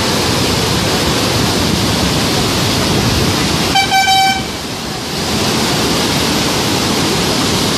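Godavari river in flood: a steady loud rush of fast-flowing floodwater. About four seconds in, a horn toots once, briefly.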